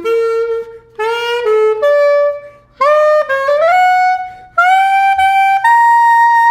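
Cheap hot pink plastic clarinet played with its stock mouthpiece and reed: short phrases of notes climbing upward, ending on a long held high note. The sound is pretty horrible, which the player blames on the stock reed and mouthpiece setup.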